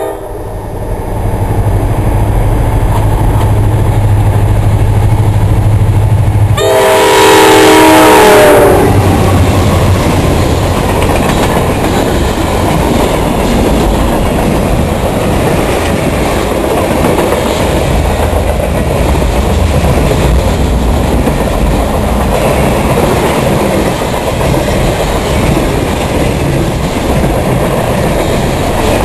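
Freight train passing close at a grade crossing. A diesel locomotive's engine hums as it nears, its multi-note air horn sounds for about two seconds some seven seconds in, and then the freight cars roll by with steady wheel clatter.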